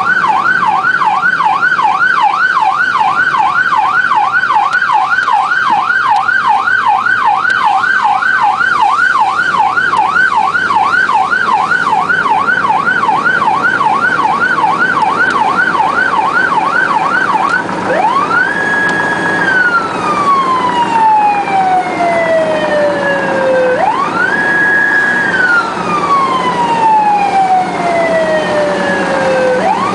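Emergency-vehicle siren sounding from inside the responding vehicle's cabin: a fast yelp, about two and a half rises and falls a second, switches about two-thirds of the way through to a slow wail that climbs, holds briefly at the top and falls away, roughly every six seconds.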